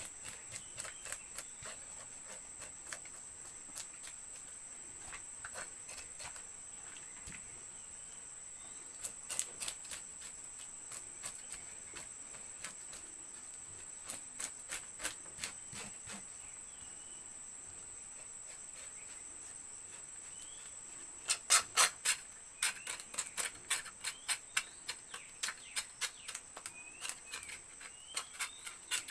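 Crickets or similar insects keep up a steady, high-pitched drone. Runs of short sharp clicks or knocks come over it, in small groups at first and then in a loud, dense run about two thirds of the way through.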